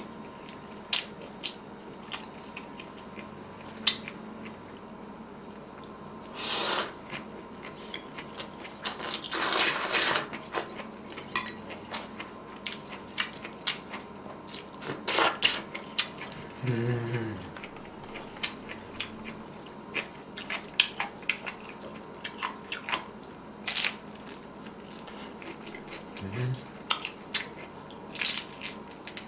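Close-miked eating sounds: a spoon and chopsticks clicking against bowls many times, chewing, and several longer noisy slurps of rice noodles. A short voiced hum comes twice, about midway and near the end.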